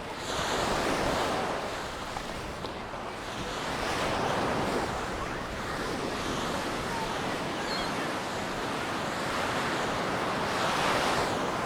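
Mediterranean surf breaking and washing up on a sand beach, swelling loudest three times: about half a second in, around four seconds, and near the end.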